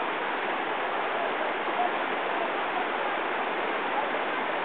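Rushing whitewater of the Little Colorado River rapids: a steady, even hiss of churning water.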